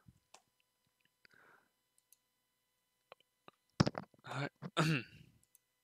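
A few sharp computer mouse clicks, the loudest about four seconds in, followed by a brief wordless voice sound.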